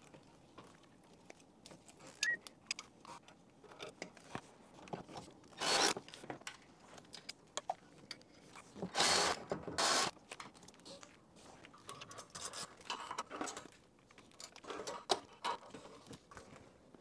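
Light clinks, clicks and scrapes of metal fasteners, hand tools and engine parts being handled while a Toyota Prius's EGR cooler and valve are refitted, with short louder rustling bursts about six seconds in and again around nine to ten seconds in.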